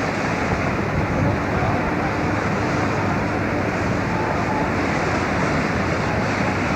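Steady engine rumble and water rush of a tour boat under way on the river, with wind buffeting the microphone.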